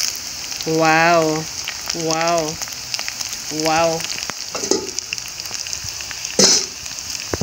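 Goat meat and sliced onions frying in hot oil in a steel pot, a steady sizzling hiss that grows louder as the lid comes off at the start. Over it a voice gives three drawn-out, wavering 'wow'-like notes in the first four seconds, and a short sharp knock comes about six and a half seconds in.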